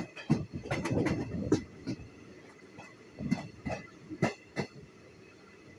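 Express train's wheels clattering over rail joints, heard from the open coach doorway: a quick run of sharp knocks in the first two seconds, then another group of knocks a little past the middle, over a steady running rumble.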